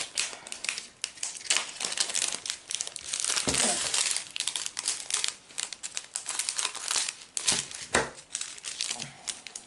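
Crinkling of metallic foil drill packets and silver zip-lock bags being handled: a dense run of sharp, high crackles with a few louder ones.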